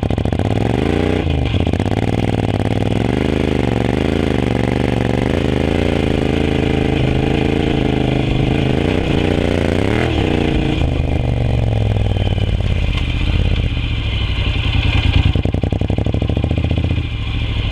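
Honda NC750X's 745 cc parallel-twin engine revving up and down under throttle while riding on loose sandy-clay ground, with a sharp rise in revs about ten seconds in, then running steadier.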